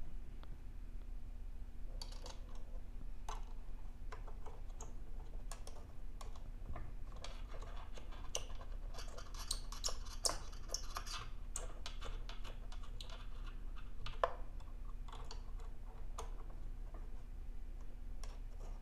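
Irregular small clicks, taps and scrapes from hands working with a screwdriver and small parts, busiest about halfway through, over a faint steady hum.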